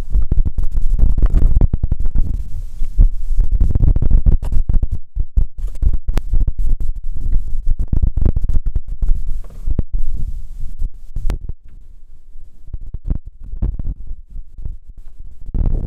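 Wind buffeting the microphone in loud, uneven low rumbling gusts, with scattered knocks, likely from gear being handled on the roof rack. The gusts ease about two-thirds of the way through.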